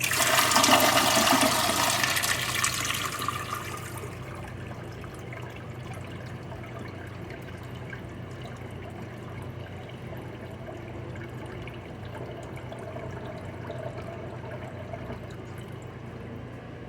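Niagara Stealth toilet flushing: a loud rush of water for the first four seconds or so, then a quieter, steady hiss and trickle as the tank and bowl refill.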